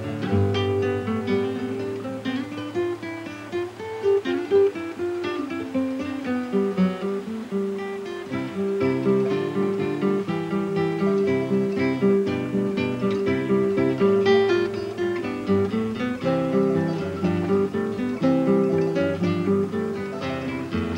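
Background music: an acoustic guitar playing a quick plucked melody over bass notes.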